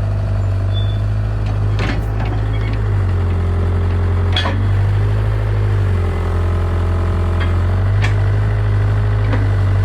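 Bobcat mini excavator's engine running steadily, its note shifting under hydraulic load twice in the middle, with a few sharp metallic knocks.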